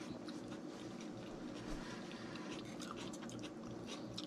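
Close-miked chewing of a mouthful of escargot: soft, wet mouth clicks and smacks over a faint steady hum, with a light tap near the end as the fork goes back into the skillet.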